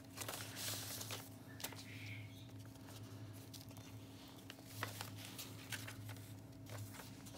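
Faint rustling and light taps of paper as a handmade junk journal's pages and tucked-in tags are handled and a page is turned, over a steady low hum.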